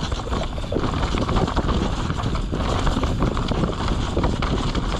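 Mountain bike being ridden fast down a rough, rocky trail: tyres on rock and dirt with dense, irregular rattling and knocking from the bike, over a steady deep rumble of wind on the microphone.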